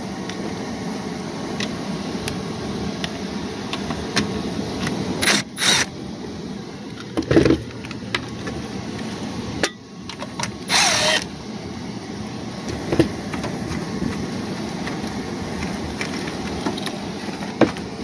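The indoor air handler of a running heat pump system gives a steady hum of airflow. Over it come a few short bursts of a cordless driver and sheet-metal clatter as an access panel is unscrewed and pulled off.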